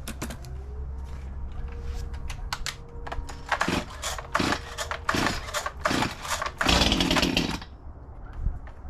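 Stihl MS 211 gas chainsaw, a small two-stroke, being started cold: a series of short bursts of engine noise about once a second, then a longer, louder burst about seven seconds in before it dies down.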